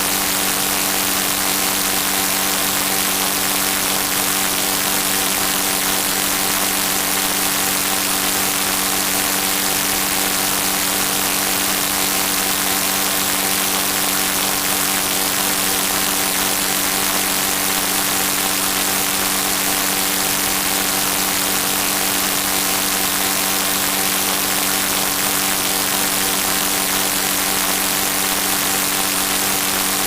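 A steady mechanical drone: an even hiss with a constant hum of several fixed tones, unchanging throughout.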